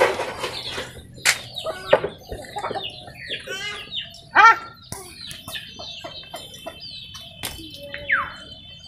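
Domestic chickens clucking in a string of short calls, with a few light knocks.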